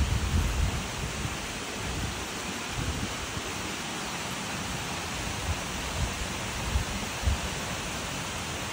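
Stream water rushing steadily, an even hiss, with a few short low thumps in the first second and again about six to seven seconds in.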